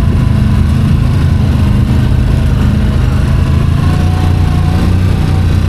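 Quad bike (ATV) engine running steadily under way, a continuous low drone heard from on the machine.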